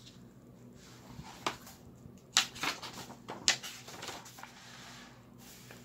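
Hardcover picture book being opened and its pages flipped by hand: a few sharp paper flaps and taps, the loudest about two and a half and three and a half seconds in, then a softer rustle of pages.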